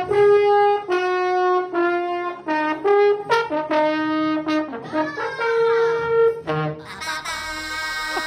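Trombone played as a comic sound effect: a quick run of short separate notes, then a sliding pitch and one long held note near the end.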